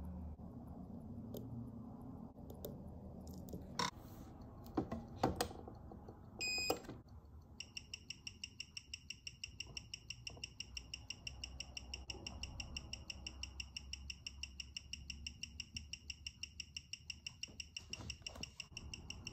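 Watch movement ticking on a timegrapher, amplified through the machine's speaker as an even run of sharp ticks about six a second, matching 21,600 beats an hour, with a steady high tone under them. The timegrapher reads +3 s/d, 301° amplitude and 0.0 ms beat error: the freshly serviced movement is running well. Before the ticking starts there are a few sharp handling clicks and a brief electronic chirp.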